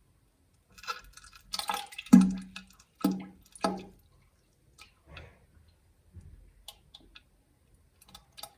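Poop sound effect in a toilet: wet spluttering and crackling about a second in, then three plops into the bowl water, the first and loudest about two seconds in, followed by fainter drips and wet ticks.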